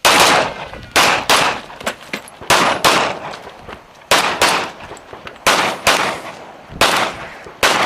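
Pistol fired rapidly in quick pairs of shots, each pair about a second after the last, about seven pairs in all. The shots are loud and sharp.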